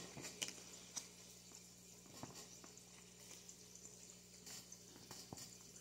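Near silence with a faint steady hum, broken by a few soft clicks and taps from Pokémon trading cards being handled and turned over.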